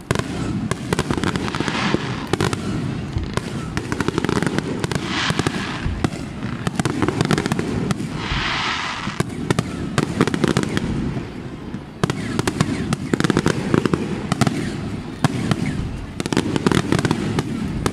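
Aerial fireworks display: a continuous barrage of rapid bangs and crackling from shells bursting overhead.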